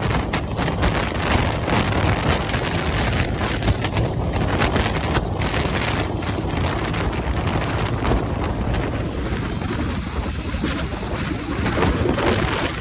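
Rescue helicopter hovering close overhead: steady rotor noise with the downwash buffeting the microphone.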